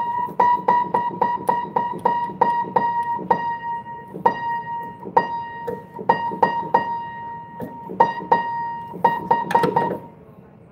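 Upright piano being tuned: one high note struck over and over in quick repeated strokes while the tuning hammer turns its pin, now and then sounded together with its lower octave. The strikes come fast at first, then more spaced, and stop shortly before the end.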